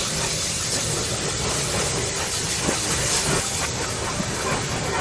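Steam tank locomotive moving along the track with a steady hiss of steam over a low rumble.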